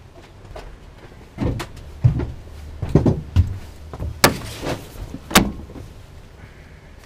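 Clunks and sharp knocks in the cab of a vintage bus as someone climbs into the driver's seat, the loudest two about four and five seconds in, the first followed by a short hiss.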